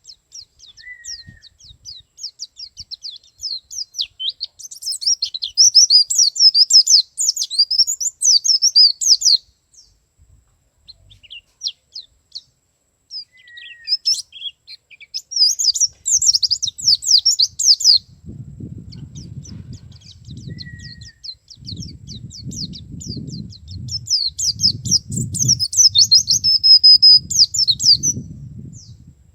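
Male white-eye (pleci) singing: long runs of rapid, high-pitched twittering in three bursts with short pauses between them.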